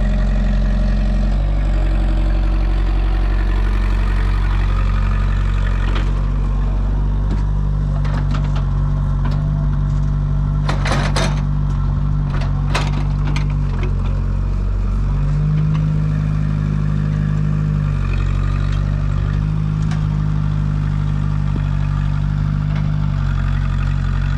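Heavy diesel engine running under changing load, its pitch stepping up and down several times, with a few sharp knocks or clanks around ten to thirteen seconds in.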